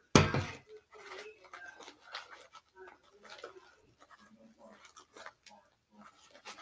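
A loud knock about a fraction of a second in, then the soft, irregular sticky clicks and squelches of slime being mixed by hand in a container.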